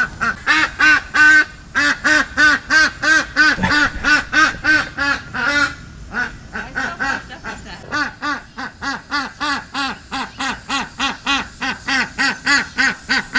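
Duck quacking in a fast, steady run of about four quacks a second, easing briefly about six seconds in before picking up again.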